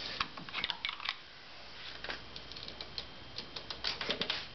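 Light metallic clicks and ticks of a hand wrench on a motorcycle clutch's mainshaft nut as it is fitted and worked, with a cluster of clicks in the first second and more scattered ones later.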